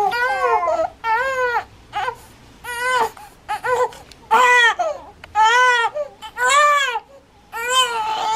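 Infant crying in a string of short wails, about one a second, each rising and then falling in pitch.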